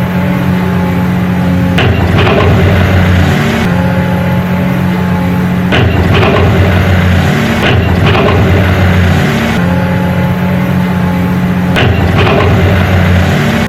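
Dump truck engine sound effect: a heavy truck engine running loudly and steadily, shifting between idle and revs every couple of seconds in a repeating pattern, with a few sharp clicks.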